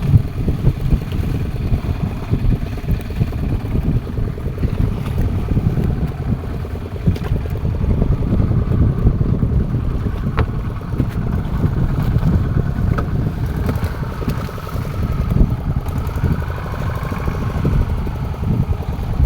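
Steady, loud low rumble of wind buffeting the microphone over a running fishing-boat engine at sea.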